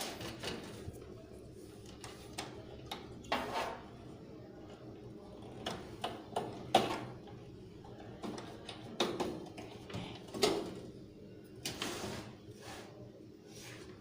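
Irregular clicks, knocks and rattles of SATA cables and connectors being handled and plugged in inside a desktop PC case, with two sharper knocks, one about halfway through and one a few seconds later.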